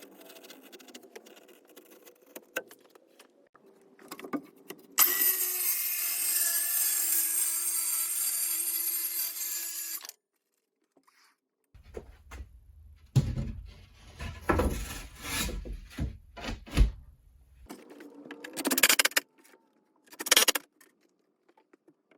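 A power saw runs and cuts through wood for about five seconds, then stops abruptly. After it come a series of irregular knocks and bumps from wood being handled.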